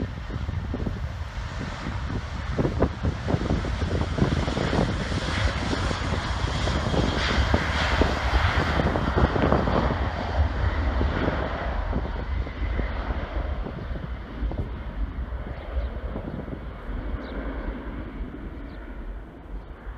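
Boeing 737 jet airliner passing by. Its engine roar swells to a peak about halfway through, then fades as the higher-pitched part of the noise dies away.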